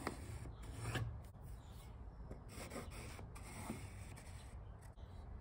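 Pencil drawing lines on bare wood along a metal speed square: a few faint scratchy strokes, with light rubbing as the square is shifted on the boards.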